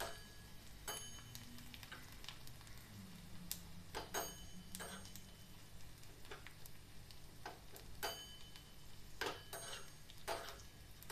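Steel spoon stirring a ghee tadka in a small iron kadhai, clinking and scraping against the pan at irregular moments about once a second, over a faint sizzle of the spices frying.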